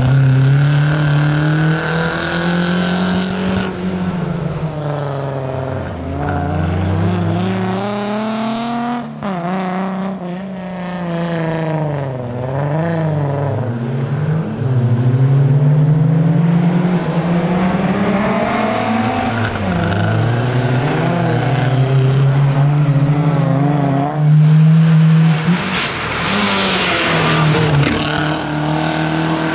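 Renault 5 Alpine rally car's four-cylinder engine revving hard under load, its pitch climbing and dropping again and again through gear changes and lifts, with a quick run of blips about ten seconds in.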